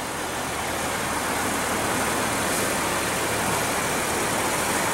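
Maserati Ghibli's Ferrari-built 3.0-litre twin-turbo V6 idling steadily, mixed with a steady outdoor hiss.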